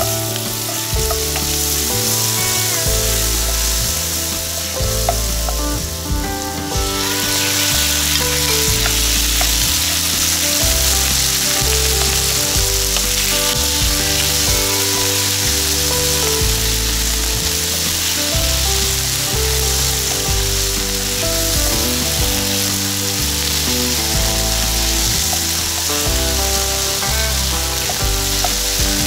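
Garlic and then diced chicken frying in hot oil in a nonstick pan, sizzling steadily as a wooden spoon stirs them. The sizzle gets much louder about seven seconds in.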